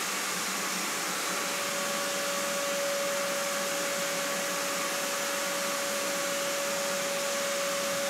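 Shop vacuum running steadily, its floor nozzle sucking sand out of carpet: a rush of air with a steady whine over it.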